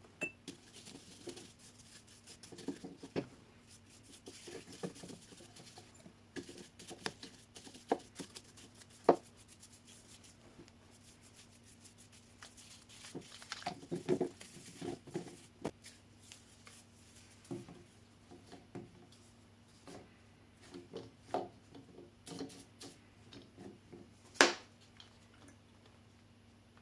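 Paintbrush dabbing and scrubbing finish onto a turned wooden ball: scattered light taps, scratchy bristle rustles and gloved-hand handling noises, with one sharp knock near the end.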